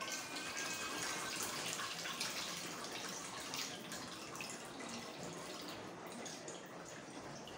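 Liquid being poured from a tilted stainless steel pot into an aluminium pot below, splashing and dripping into it.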